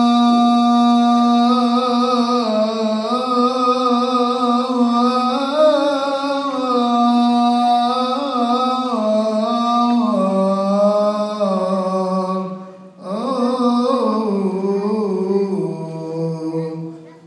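Coptic Orthodox liturgical hymn chanted, long melismatic notes held and sliding slowly in pitch, with a short pause for breath about two-thirds of the way through.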